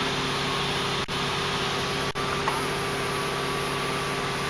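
Steady low hum of an idling vehicle engine. About halfway through, a faint thin electric-motor whine joins it, most likely the Hummer H2's power folding side mirror moving.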